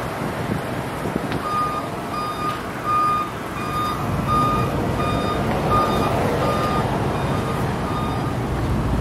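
A vehicle's backup alarm beeping on one steady pitch, a little under two beeps a second. It starts about a second and a half in and stops near the end, over a low vehicle rumble and outdoor noise.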